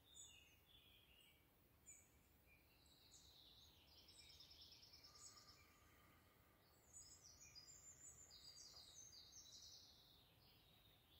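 Faint birdsong over near silence: small birds chirping and trilling, in two spells about three seconds in and again about seven seconds in.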